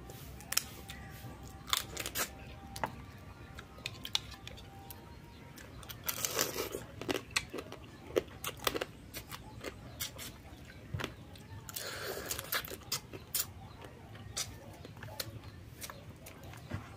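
Close-up eating of cooked crab: shell and claws cracking in sharp clicks, with the meat being picked, sucked and chewed. Two longer, noisier spells come about six and twelve seconds in.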